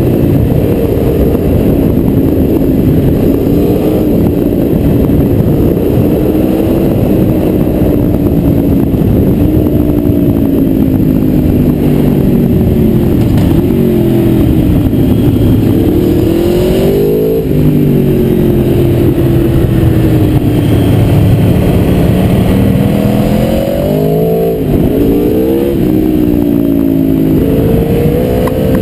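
Aprilia Tuono V4R's V4 engine running under way, heard onboard. Its pitch falls and rises several times as the bike slows for bends and pulls out again, with a quick series of sharp drops and rises a little past the middle and again near the end.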